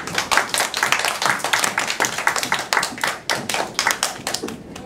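A group of children clapping their hands, a quick, dense run of claps for about four and a half seconds that thins out near the end.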